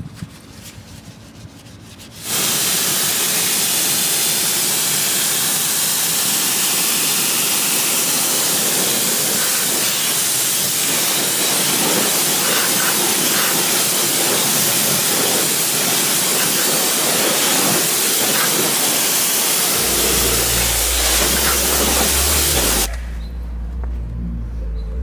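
Pressure washer spraying water in a loud, steady hiss that starts suddenly about two seconds in and cuts off about two seconds before the end. A low steady hum comes in near the end.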